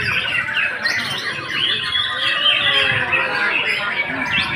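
White-rumped shama (murai batu) song: fast, varied whistles, trills and chattering phrases, overlapping with other songbirds, over a background murmur of people's voices.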